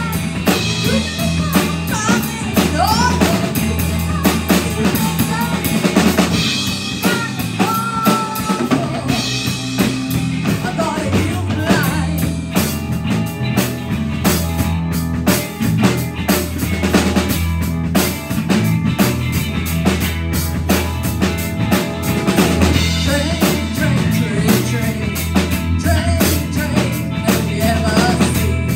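A live rock band playing a song: a drum kit keeps a steady beat under electric bass, electric guitar and keyboard.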